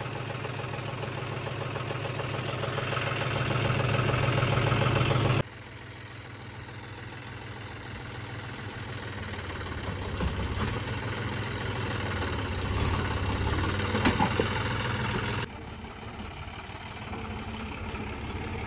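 John Deere 5105 tractor's three-cylinder diesel engine working under load as it hauls a loaded trolley up over a heap of bricks, growing louder as it pulls. The level drops abruptly about five seconds in and again near the end, and a short knock sounds about fourteen seconds in.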